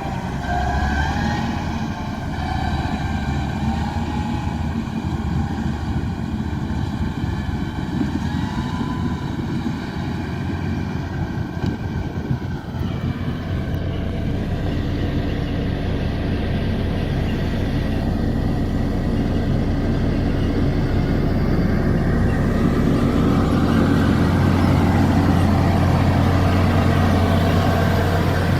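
Komatsu D41P crawler bulldozer working, its diesel engine running steadily. High wavering whines sit over the engine for the first half and die away about halfway through. The engine grows louder in the last few seconds.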